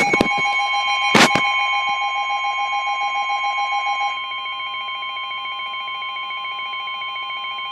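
Emergency Alert System attention signal: a loud, steady two-tone alarm, with a sharp click a little over a second in. The tone drops slightly in level about four seconds in.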